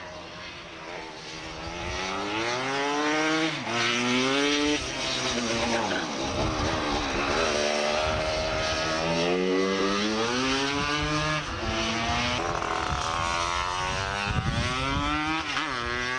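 Two-stroke racing scooter engine accelerating hard, its pitch climbing through the revs and dropping back at each gear change, several times over.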